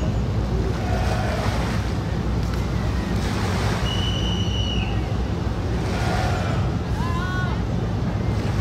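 Military river patrol boats passing close: a steady low engine rumble mixed with the rush of their wakes and wind on the microphone. A few brief high whistle-like chirps cut in over it, one held for about a second near the middle and a wavering pair near the end.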